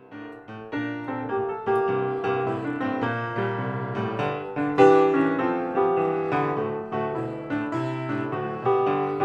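Piano music starts from silence, with struck notes in chords and a moving melody at an even pace.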